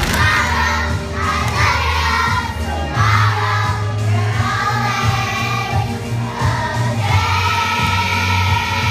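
A group of young girls singing together over a music accompaniment with a steady bass line.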